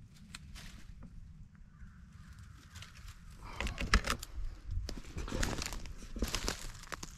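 Footsteps crunching through dry leaf litter and brushing past twigs, in irregular crackling rustles, loudest about four seconds in and again from about five to nearly seven seconds in.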